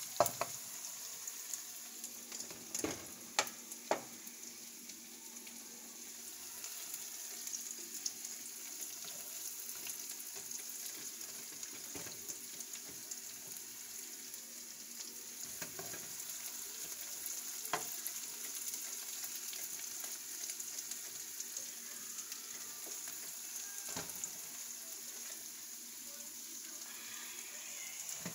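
Sliced onions and sweet peppers sizzling steadily in butter in a nonstick frying pan, with a few sharp clicks scattered through.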